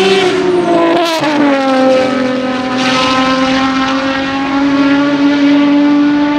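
The 5.9-litre V12 of an Aston Martin V12 Vantage GT3 race car running through a corner on an open exhaust. It drops in pitch about a second in, then holds a steady note as the car pulls away.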